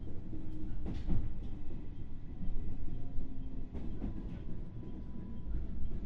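Interior running noise of a JR West 221 series electric train, heard inside its motor car: a steady low rumble of wheels on rail, with sharp clicks from the track about a second in and again near four seconds.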